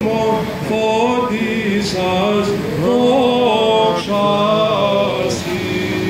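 Male voice chanting a Byzantine Orthodox hymn, as at a Theophany blessing of the waters, in one continuous winding melody that slides between notes over a held lower note.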